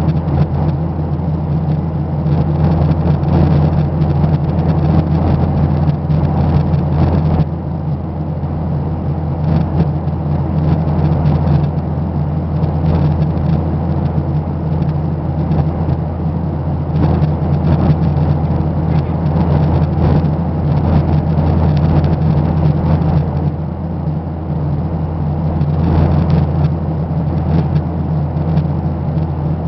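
Steady engine drone heard from inside a passenger aircraft cabin: a constant low hum with a rushing rumble over it, unchanging throughout.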